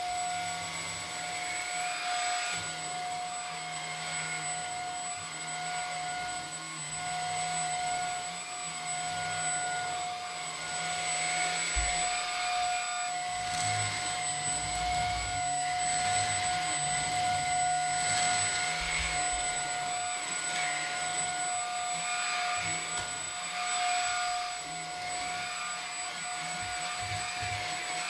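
Maircle S3-Mate cordless vacuum running in handheld mode, its motor giving a steady high whine over a rush of air. The noise swells and dips as the brush nozzle is worked over the fabric of a sofa, picking up bits of paper.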